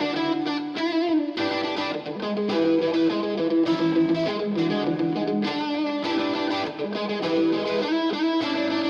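Music: a distorted electric guitar playing.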